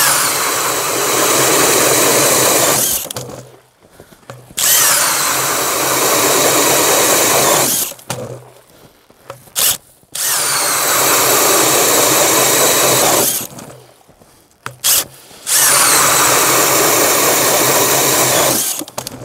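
DeWalt cordless half-inch drill spinning an 8-inch Eskimo pistol bit ice auger, boring through 8 inches of ice in four runs of about three to four seconds each, with brief pauses between. At the start of each run the motor's whine drops in pitch as the blades bite into the ice.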